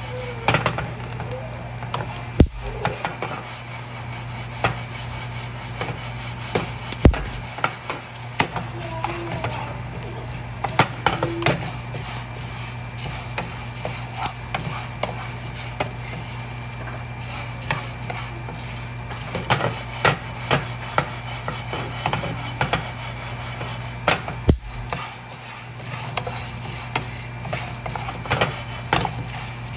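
Wooden spoon stirring pumpkin seeds as they dry-roast in a metal frying pan: the seeds rattle and scrape with many small clicks, and the spoon now and then knocks louder against the pan. A steady low hum runs underneath.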